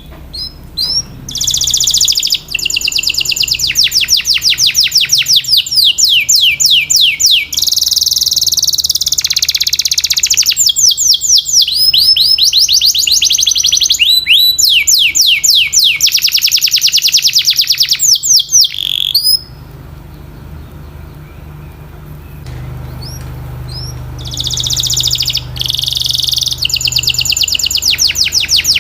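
Domestic canary singing: long fast trills of rapidly repeated falling notes, one trill running into the next, breaking off for a few seconds about two-thirds of the way through and then starting again. A faint steady low hum runs underneath.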